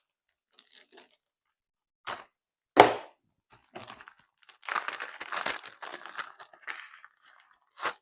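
Plastic bag and folded paper being handled: two sharp cracks, then a stretch of crinkling and rustling, and one more crack near the end.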